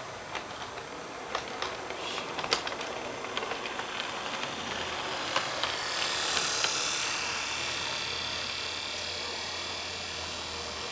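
HO scale model diesel locomotive running past on the layout: a mechanical whirr that builds to its loudest about six seconds in, then fades as it moves away, with many light clicks throughout.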